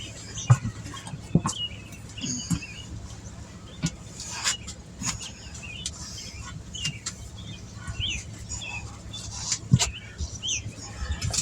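Small birds chirping repeatedly, with scattered sharp knocks and clunks, the loudest about half a second in and again near ten seconds.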